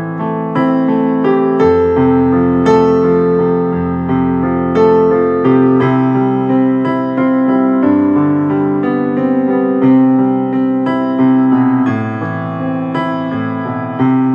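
Instrumental ringtone tune on a piano-like keyboard: a slow melody of struck notes, each fading away, over held chords.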